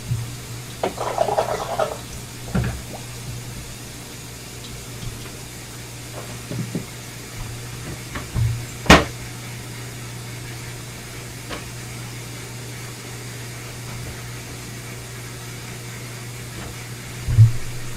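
Steady low hum of an aquarium sump's return pump, with water splashing and gurgling briefly about a second in. Scattered knocks, one sharp loud click about halfway through and a thump near the end come from handling the plumbing.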